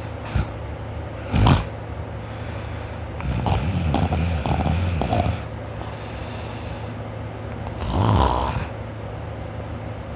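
A sleeping man snoring: a short loud snort about a second and a half in, a longer broken snore in the middle, and another snore near the end, over a steady low hum.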